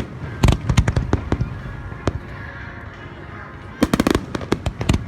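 Fireworks going off: a rapid series of sharp bangs and crackles in a dense cluster over the first second and a half, then fewer single reports, and another dense cluster near the end.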